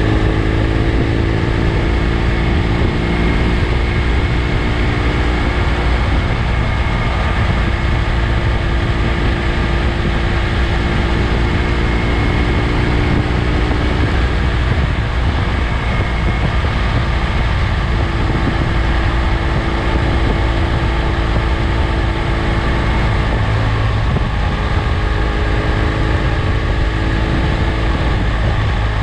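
BMW F 800 GS parallel-twin engine running at a steady road speed, mixed with wind rushing over the bike-mounted microphone.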